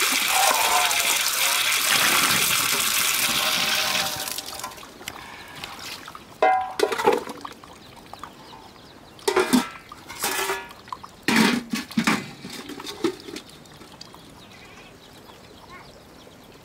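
Water from an outdoor tap gushing and splashing into a steel bowl and onto concrete, stopping about four seconds in. Then steel plates and a pot clink and clatter a few times as they are handled.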